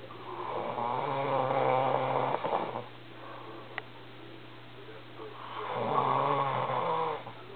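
A sleeping man's growling snore: two long snores, each about two and a half seconds, a few seconds apart.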